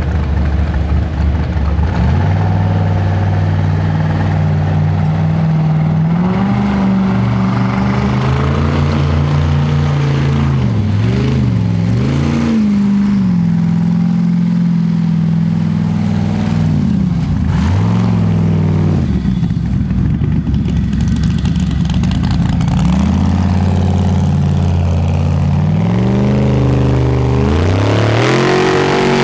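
Formula Offroad hillclimb buggy's engine running hard at high revs, the pitch stepping up and down and dipping sharply several times as the throttle is lifted and reapplied on the climb.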